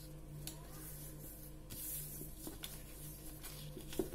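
A sheet of thin craft paper rustling and sliding on a wooden tabletop as hands fold and crease it, with a few soft clicks and a sharper tap near the end. A faint steady low hum runs underneath.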